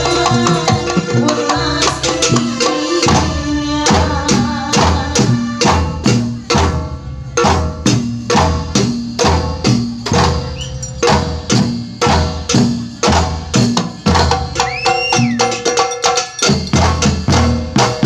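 Live kuntulan music: terbang frame drums and a bass drum beat a steady, even rhythm, with low thuds about twice a second, under a held melody.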